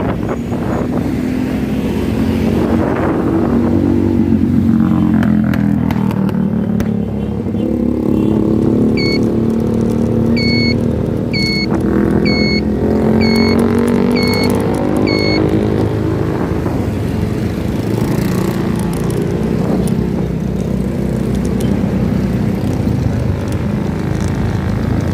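A vehicle's engine running while on the move, its pitch rising over the first few seconds, dipping, then holding fairly steady. Around the middle, seven short high-pitched beeps sound about once a second.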